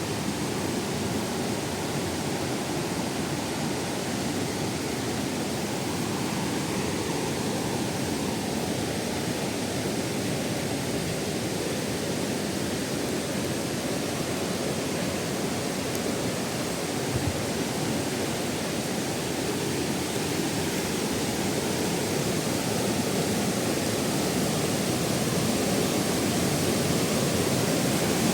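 Waterfall cascading over rock tiers, a steady rush of falling water that grows slightly louder in the last few seconds.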